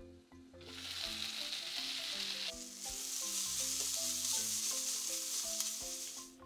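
Diced carrots, red bell pepper and onion sizzling in hot oil in a pan as they are stirred, with light background music of steady plucked notes underneath. The sizzle starts about half a second in.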